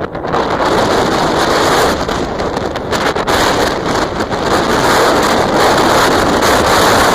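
Strong wind buffeting the microphone, a loud, steady rush of noise that picks up sharply in the first second.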